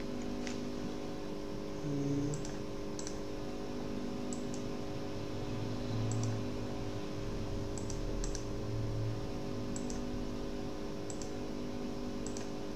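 Scattered clicks of a computer mouse and keyboard, several coming in quick pairs like double-clicks, over a steady low hum.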